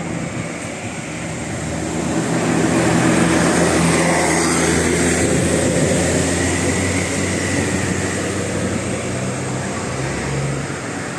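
Bus passing close by: engine and tyre noise swell to a peak a few seconds in, then fade slowly as it goes away.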